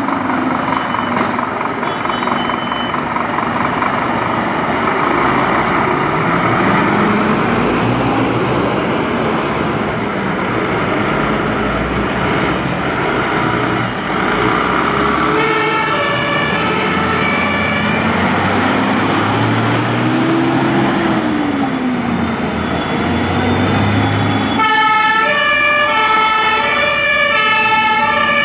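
Fire trucks' diesel engines running as they pull out, their pitch rising and falling twice. About halfway through, and louder near the end, German two-tone sirens (Martinshorn) start sounding, alternating between two notes.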